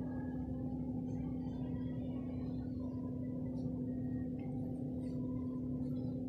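A steady low hum with a low rumble beneath it, and faint short squeaks of a marker writing on a whiteboard.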